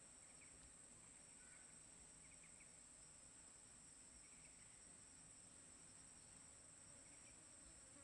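Faint, steady high-pitched drone of rainforest insects, with a few short, faint chirps every second or two.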